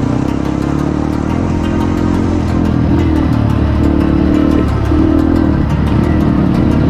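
Motorcycle engine running as it is ridden, its pitch shifting with the throttle about two-thirds of the way through.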